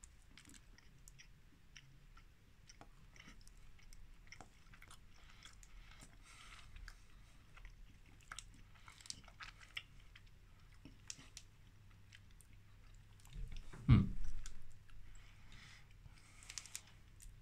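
A person chewing a soft Hershey's Cotton Candy bar with no crunchy bits, close to the microphone: quiet bites and small wet mouth clicks. A brief low thump comes about three-quarters of the way through.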